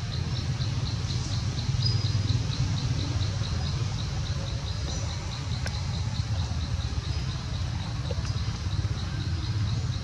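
An insect chirping in a steady, regular pulse of about four to five high chirps a second, over a low steady rumble.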